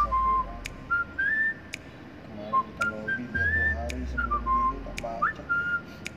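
Background music carrying a whistled melody: clear notes that step and glide up and down, over a light click about once a second and a low bass.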